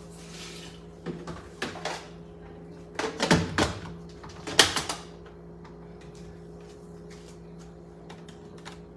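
Kitchen handling noise: a short splash of water at the start, then knocks and clunks of objects being set down or fitted together, loudest about three and four and a half seconds in, over a steady low electrical hum.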